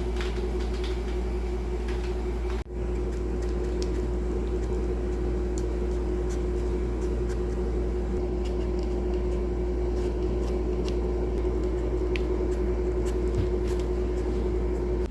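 A small electric appliance motor running steadily: an even hum with one steady tone and a few faint clicks. It drops out for an instant about two and a half seconds in.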